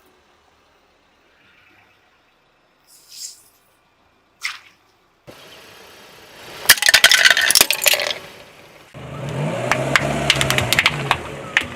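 A car tyre rolling over and crushing brittle objects: after a few quiet seconds, a burst of sharp cracks and crunches, then the car's engine running under more cracking and snapping.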